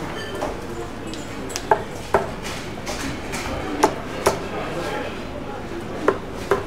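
Steel-tip darts striking a Winmau Blade 5 bristle dartboard: short sharp thuds a second or two apart, over a low murmur of room chatter.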